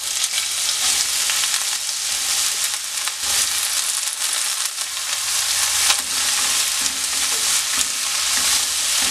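Hot oil sizzling steadily in a non-stick wok as finely chopped raw papaya is tipped in over a tempering of shallots, curry leaves and dried chillies, then a wooden spatula stirring it through, with a few scrapes against the pan.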